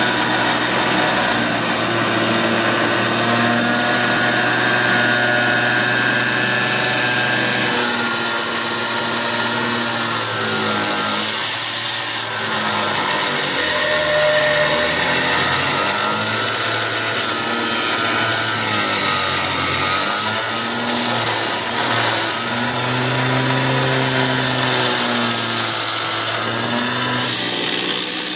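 Handheld angle grinder with a thin cutting disc running continuously as it cuts along the edge of a sheet panel, a steady hiss under a motor whine whose pitch wavers up and down as the disc bites.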